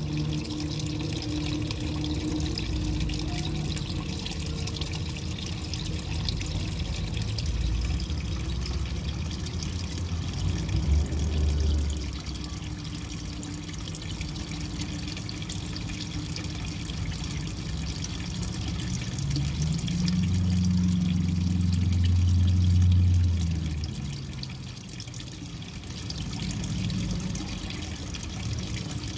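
Running water trickling and splashing steadily into a garden pond. A low hum rises and fades again about two-thirds of the way through.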